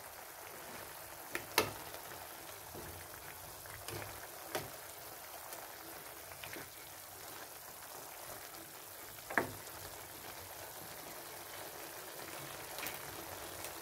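Chicken adobo with potatoes simmering in its soy-vinegar sauce in a pan: a steady bubbling hiss with scattered pops. A few sharp clicks, the loudest about 1.5, 4.5 and 9.5 seconds in, come as a spatula stirs the pan.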